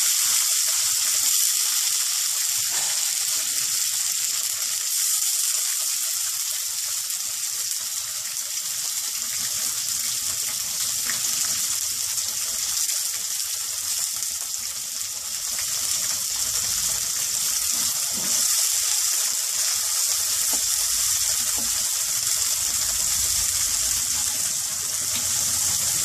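Spring onion greens and green chillies sizzling in hot oil in a kadai: a steady frying hiss.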